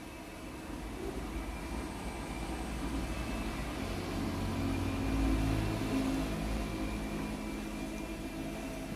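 Twin-tub washing machine's wash motor running, a low hum that swells about four seconds in and eases off toward the end.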